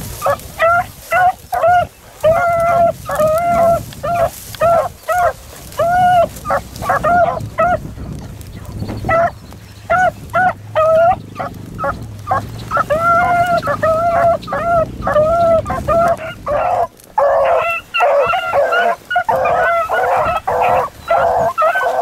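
Beagles baying while running a rabbit's scent trail: a string of short, arched bawls with gaps between them, growing into a dense chorus of overlapping voices over the last five seconds.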